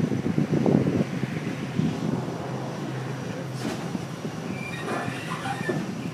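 Keith walking floor in a live-floor trailer running: its metal floor slats slide and clatter over a steady low hum, with a few squeals near the end.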